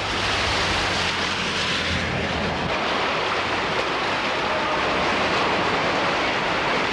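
Floodwater rushing, a loud, even noise that never breaks.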